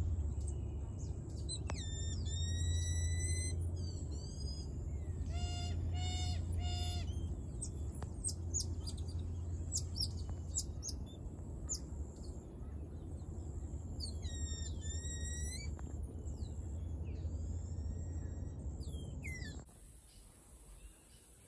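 Repeated high-pitched chirps and whistling calls from birds or small monkeys in the trees, some sweeping down in pitch and one short three-note call, over a steady low rumble that drops away near the end.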